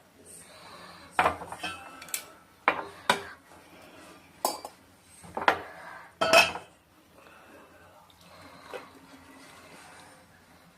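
A pot and strainer clinking and knocking against a cup while a boiled herbal decoction is poured and strained. There are about seven sharp clinks in the first seven seconds, then a faint, quieter stretch.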